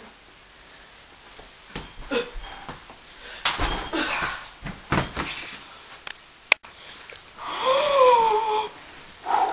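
A person's raspy, wheezing breaths and gasps in a small room, then a sharp click. Near the end comes a drawn-out wordless shout from a boy.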